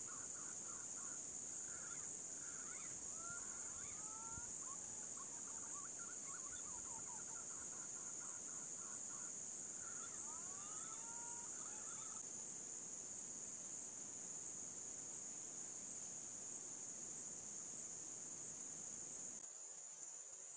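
A steady, shrill high-pitched insect drone runs throughout. Over it, for the first dozen seconds, come trains of quick fluttering bird notes and several rising-and-falling whistled glides, the calls of green pigeons (punai) at a trapping spot.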